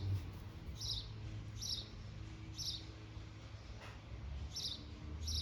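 A small bird chirping, short high chirps repeated about once a second, over a steady low hum.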